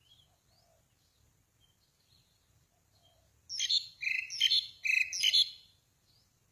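A small bird gives a loud, high-pitched burst of chattering call notes about three and a half seconds in, lasting about two seconds, with fainter bird calls before it.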